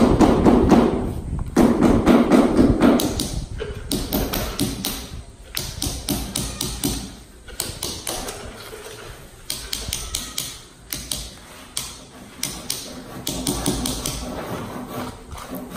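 Claw hammer striking a hand chisel to chip concrete off the top of a block wall: a long run of sharp taps, heaviest in the first few seconds and lighter after that.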